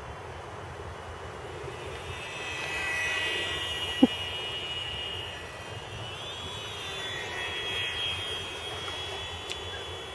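The small electric motor and propeller of an ultra-micro RC plane whining in flight. The whine swells as the plane comes near, and its pitch bends up and down about six to seven seconds in as the plane passes close. A short sharp pop about four seconds in.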